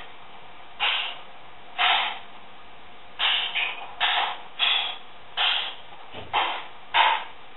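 Escrima sticks clacking together in about nine irregular strikes, some in quick succession, over a steady hiss.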